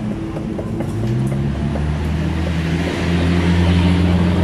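A steady low mechanical hum with a hiss that grows louder toward the end.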